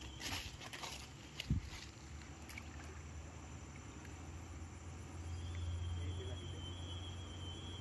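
Small splashes at a pond's surface in the first second or so as fish rise to take feed, followed by a steady low rumble that is loudest about five to seven seconds in. A thin, high, steady insect-like tone joins about five seconds in.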